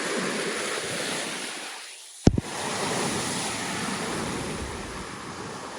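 Lake Michigan waves washing onto the beach: a steady rush of surf that dips briefly about two seconds in and is broken by one sharp knock.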